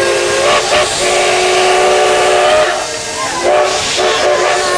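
Steam locomotive whistle blowing several steady tones at once over a loud hiss of escaping steam. The whistle drops away briefly about three seconds in, then sounds again.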